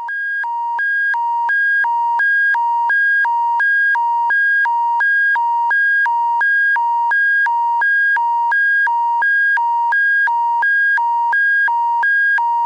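Electronic emergency-alert attention signal: a low tone and a high tone alternating evenly, about two pairs a second, steady and loud.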